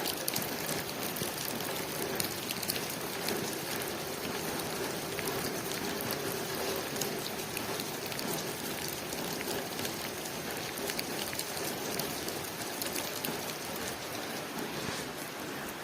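Steady rain falling on a window, many small drop ticks over an even hiss.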